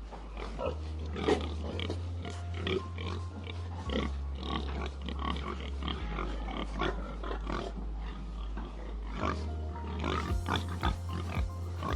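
Pigs grunting and calling in short irregular bursts, over background music with a slow low bass line.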